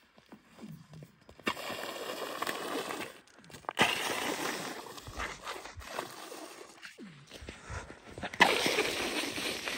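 Shoes crunching and scraping on the snow-dusted surface of a frozen lake, in three spells of steps that each start abruptly.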